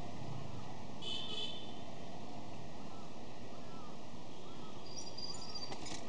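Street traffic ambience of cycle rickshaws and passers-by. There is a short, high-pitched double toot about a second in, and a thin high tone with a few clicks near the end.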